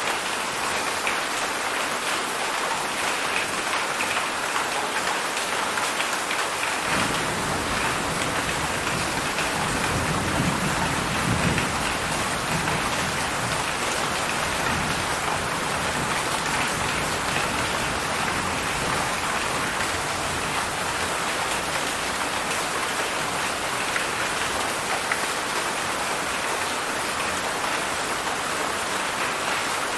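Heavy rain falling steadily. About seven seconds in, a low roll of thunder rumbles in, peaks a few seconds later and dies away under the rain.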